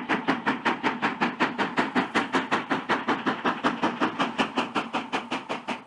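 Steam locomotive exhaust chuffing in a fast, even rhythm of about five to six beats a second, as a locomotive runs at speed.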